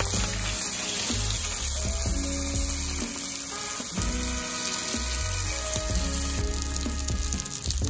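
Mackerel fillets sizzling in hot fat in a non-stick frying pan, with steady frying hiss. Soft background music with a bass line plays underneath.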